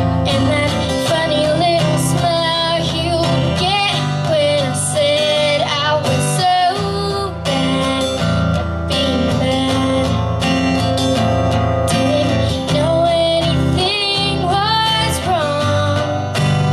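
A woman singing a slow melody over a strummed guitar, performed live.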